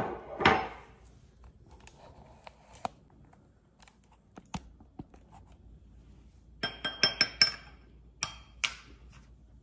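Metal spoon clinking and tapping against a small glass mixing bowl holding honey: a quick run of ringing clinks about seven seconds in, then a couple more taps. A louder knock comes at the very start, with light scattered taps of bottle caps and utensils on a stone counter in between.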